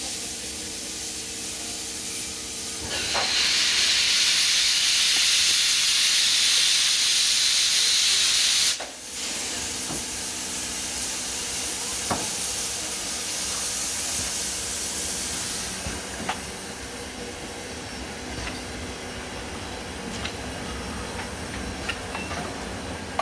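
DR class 41 steam locomotive 41 1144-9 hissing steam while standing. About three seconds in, a much louder hiss of venting steam starts and runs for about six seconds before it cuts off suddenly. After that a softer steady hiss continues, with a few light knocks.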